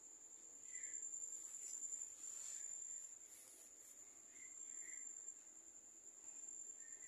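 Cricket trilling steadily on one high pitch, faint. A few short, faint high chirps come and go, with a soft rustle between about one and three seconds in.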